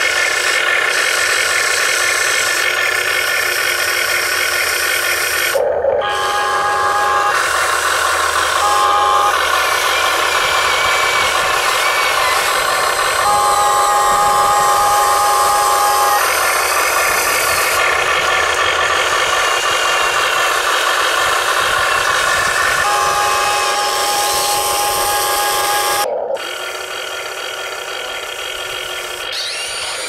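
Radio-controlled excavator's electric motors and gearboxes whining steadily as it digs, the pitch changing every few seconds as different motors work. The sound breaks off abruptly twice, once about six seconds in and once near the end.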